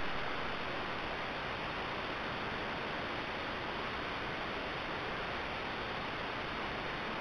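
Steady hiss from the trail camera's own microphone, with a thin, faint high whine running through it. The hiss is a little louder at first and settles within about a second.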